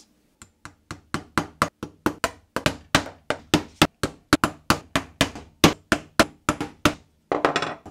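Claw hammer driving tapered horseshoe nails into a wooden work board. Two soft taps, then a quick, steady run of sharp strikes, about four a second.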